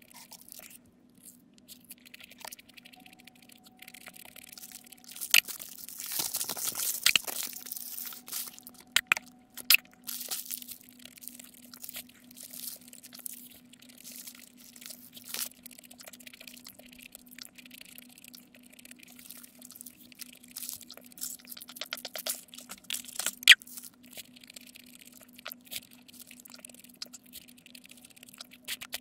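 Close-miked eating of a burger: a paper wrapper crinkles and tears for a few seconds, then there are soft bites, chewing and wet mouth sounds with scattered crackles of the wrapper. A steady low hum runs underneath.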